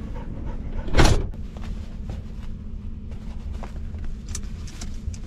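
Hands fitting a quilted window cover over a truck camper's window: light clicks, knocks and rustles, with one loud, brief swish or bump about a second in, over a steady low rumble.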